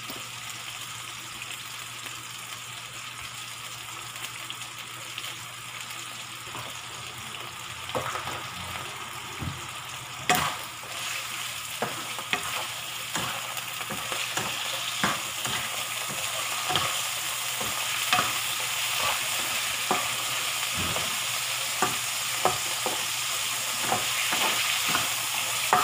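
Chicken pieces sizzling as they sauté in a frying pan on a gas burner, the sizzle growing louder in the second half. From about eight seconds in, a metal spatula scrapes and taps against the pan as the chicken is stirred.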